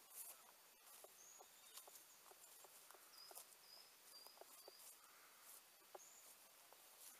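Faint, irregular soft crackles of steps moving through dry fallen leaves, with a small bird giving short, thin, high chirps several times in the middle.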